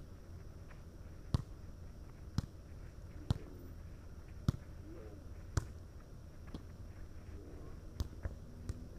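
Volleyball being struck back and forth by hand and forearm in a passing drill: sharp slaps about one a second, with a few quicker light hits near the end.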